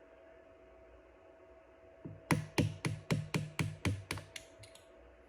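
A quick run of about ten sharp taps, roughly four a second, starting about two seconds in: a pin punch being struck to drive a pin out of a Glock 26 frame.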